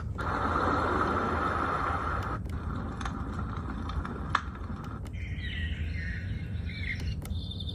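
White noise machine's speaker playing synthetic nature-sound tracks, switching modes with short clicks: a steady rushing noise for about two seconds, then bird-like chirping, then a steady pulsing insect-like trill near the end.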